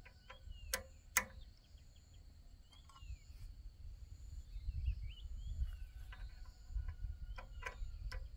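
Outdoor ambience: a steady high insect drone with short chirping and whistled bird calls over a low rumble. A few sharp taps or knocks sound, two about a second in and two more near the end.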